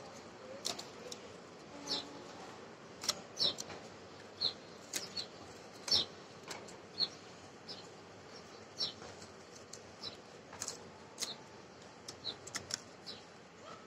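Paper rustling and crinkling in short, irregular crackles as fringed green paper is handled and wrapped around a white paper cone.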